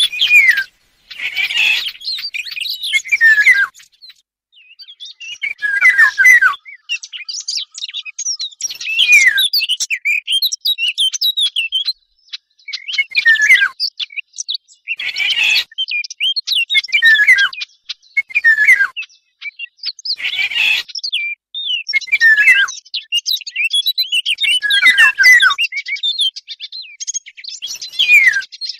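Recorded bird-call track mixing the songs of the Eurasian golden oriole and fig-bird warblers. Short twittering phrases with downward-sliding whistles repeat every second or two, with brief gaps between them.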